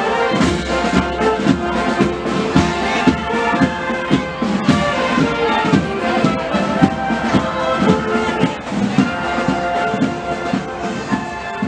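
Marching wind band of clarinets and saxophones playing a tune over a steady beat.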